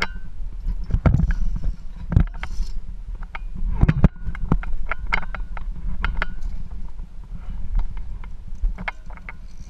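Via ferrata gear in use: metal carabiners and the lanyard clink and knock against the steel safety cable and the rock as the climber moves. It comes as an irregular string of sharp clicks over a low rumble of handling and rubbing noise on the body-worn camera.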